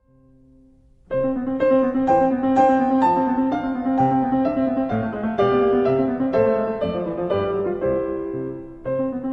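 Piano music: a melody of notes struck about twice a second, starting about a second in after a faint held tone.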